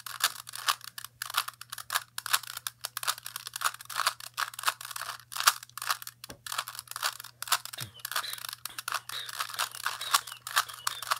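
Rubik's cube being twisted by hand during a solve: quick, irregular plastic clicks and clacks of the layers turning, several a second, with a few short pauses.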